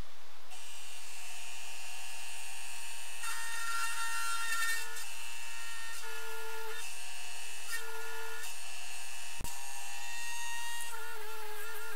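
Small high-speed power-tool motor spinning a center drill into a steel workpiece: a steady whine whose pitch shifts every second or so as the drill cuts. A single sharp click about nine and a half seconds in.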